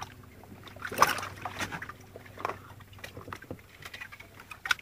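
Splashes and sharp water slaps as a hooked bonito thrashes at the surface beside the boat, the loudest about a second in and another near the end, over the low wash of water against the hull.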